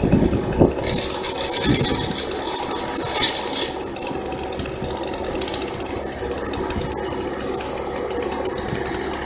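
An engine running steadily with a fast, even beat, with a few low thumps in the first two seconds.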